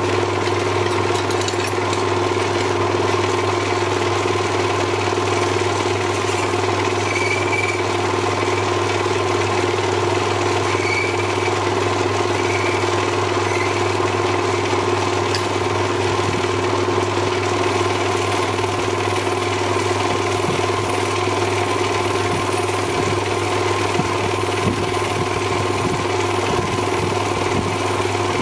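Small workshop lathe running with a steady hum while a hand-held cutting tool shapes the cap and finial of an ebonite fountain pen.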